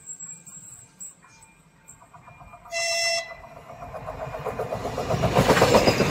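Blue České dráhy passenger multiple-unit train sounding one short horn blast about three seconds in, then approaching and passing close by. Its rumble and wheel clatter on the rails grow steadily louder.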